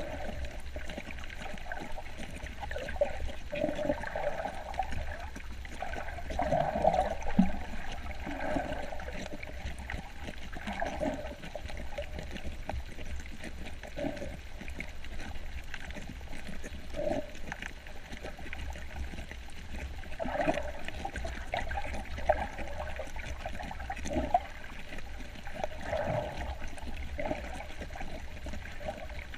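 Water gurgling and sloshing around a snorkeler's camera in irregular swells.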